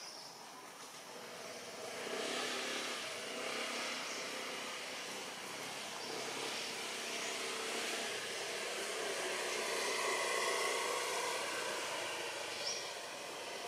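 Steady drone of distant engine noise, swelling about two seconds in and holding.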